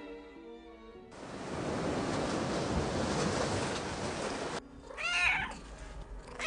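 A domestic cat meowing plaintively, twice, in the last second and a half. Before the meows a steady rushing noise runs for a few seconds and stops abruptly, and sad music fades out at the start.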